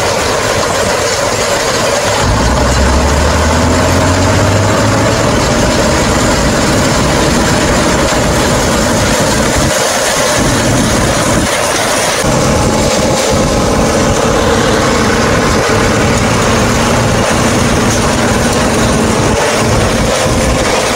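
Bizon combine harvester running steadily while threshing triticale: the diesel engine and threshing machinery make a continuous loud drone, with a deeper hum for a few seconds near the start.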